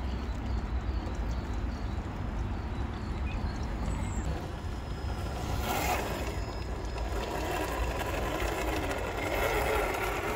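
Traxxas TRX-4 crawler's brushed electric motor and geared drivetrain whining as the 1/10-scale truck creeps down a muddy bank and into shallow creek water. The whine rises and falls with the throttle in the second half, with a short burst of noise about six seconds in.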